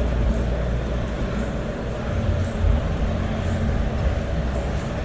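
Steady low rumble under a haze of background noise in a crowded machinery-show hall, with no single sound standing out.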